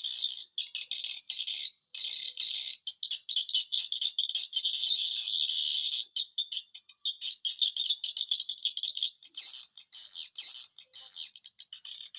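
Edible-nest swiftlet calls: a dense, rapid, high-pitched chattering twitter that breaks off briefly a few times.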